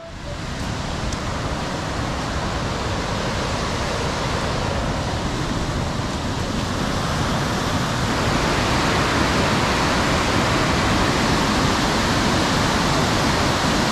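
Steady rush of fast-flowing white water from a river or falls, an even hiss that holds level throughout.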